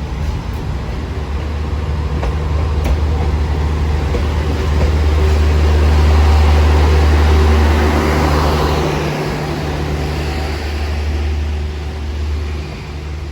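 Train running: a steady low rumble with a broad rushing noise that swells about halfway through and then eases off.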